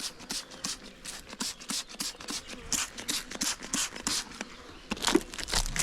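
Plastic wrapping crinkling as it is peeled off a wax comb-foundation sheet, a quick, irregular run of crackles and rustles.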